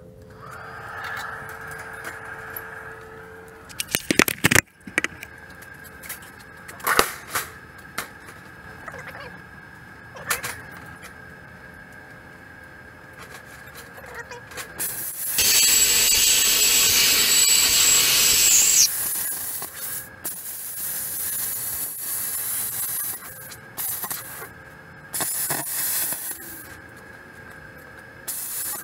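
Air plasma cutter's compressed air hissing for about three and a half seconds in the middle, with a high whistle that rises just as it cuts off. Around it are a steady faint whine and a few sharp knocks from the steel sheet being handled.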